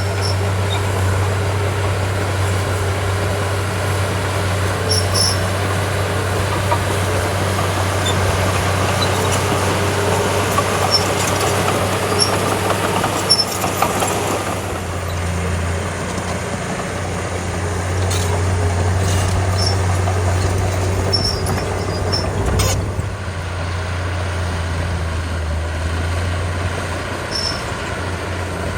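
Small crawler bulldozer's diesel engine running steadily under work, with scattered light clanks and one sharper knock about two-thirds of the way through.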